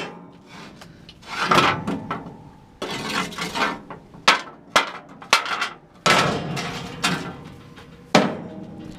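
A series of about ten knocks and scrapes at uneven intervals, some sharp and short and some longer and rasping, typical of hands and tools working on a rusted metal chamber.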